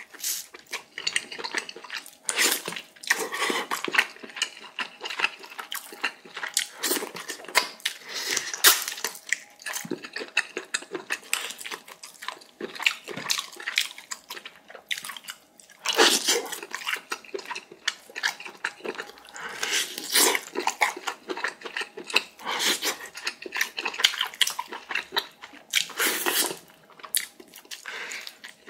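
Close-miked eating sounds: wet chewing and slurping of pork-bone galbitang meat and broth, full of quick smacks and clicks.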